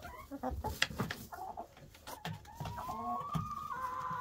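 Chickens clucking, with one long drawn-out call held at a steady pitch through the last second and a half.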